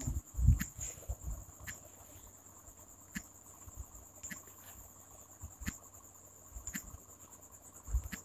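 Steady high-pitched chirring of crickets, with scattered light taps on a phone's touchscreen keyboard. A low thump comes about half a second in and another near the end.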